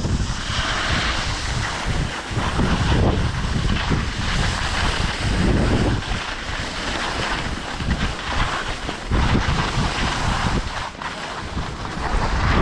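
Wind buffeting the microphone in gusts during a ski run, over a hiss that swells and fades, from skis sliding over snow.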